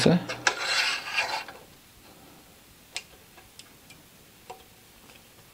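A small laser being fitted onto the steel support bar of a Tormek sharpening machine by hand: a rubbing, scraping sound of metal parts for about a second and a half, then quiet with a few faint clicks.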